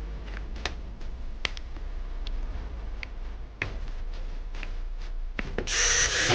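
Scattered small clicks and taps of a handheld electric drill being handled, then near the end the drill's motor starts up and runs with a loud, harsh whir. The owner judges this drill's rotor to be burnt.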